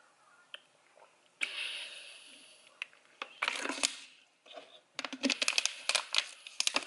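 Small objects being handled: two bursts of rustling, the first fading out over about a second, then a rapid run of small rattling clicks lasting nearly two seconds near the end.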